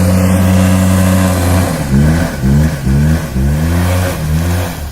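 Small engine of an Arctic Cat Kitty Cat kids' snowmobile running hard at a steady pitch, then from about two seconds in revving up and down over and over, about twice a second.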